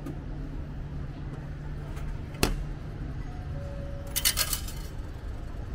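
Coins dropping into the stainless-steel change tray of a station ticket vending machine: one sharp click a little past the middle, then a quick run of metallic clinks about four seconds in, over a steady low hum.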